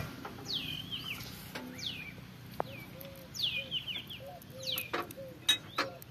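Birds calling: short high chirps that fall in pitch, repeated several times, over fainter short low notes. A few sharp metallic clicks, the loudest at the very start and about five and a half seconds in, come from a steel flange plate and shaft being handled.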